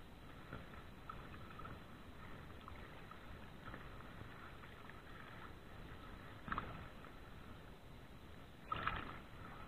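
Faint, steady sound of choppy water and wind on the microphone, broken by two short knocks, one about six and a half seconds in and a louder one near the end.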